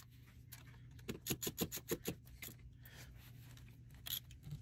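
Ratchet wrench clicking in short quick runs as it is worked back and forth, tightening a high-pressure fuel pump's mounting bolt. The run of clicks is thickest between one and two and a half seconds in, with a couple more near the end.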